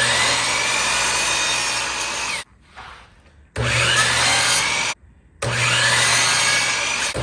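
Power saw cutting 45-degree angles across narrow fence-picket strips: a steady motor hum with the blade's pitch sweeping as it cuts. There are three cuts, broken by short silent gaps about two and a half seconds in and again near five seconds.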